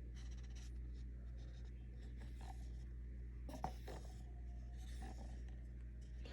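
Faint scraping and rubbing strokes from working with a cup of epoxy resin over the mould, with a single light knock about three and a half seconds in, over a steady low hum.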